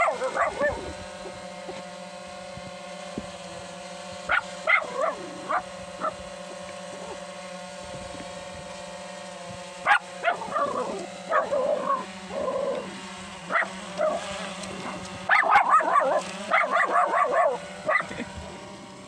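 Hovering camera drone's propellers humming steadily close by, with clusters of short, loud pitched calls over it a few seconds in, around the middle, and again near the end.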